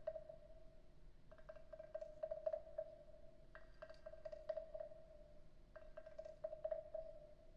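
Wooden frog percussion instrument (frog güiro) played with its stick, making three rattling croaks of rapid clicks about two seconds apart, over a faint steady ring.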